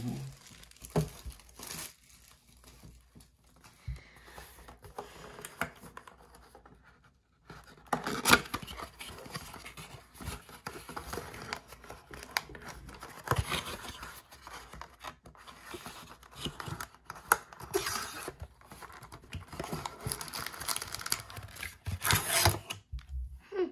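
Cardboard trading-card blaster box being torn open by hand, its flaps and perforations ripping and scraping, with the foil-wrapped card packs inside crinkling as they are pulled out. It is quiet for the first few seconds, then busy from about seven seconds in with sharp rips and crinkles.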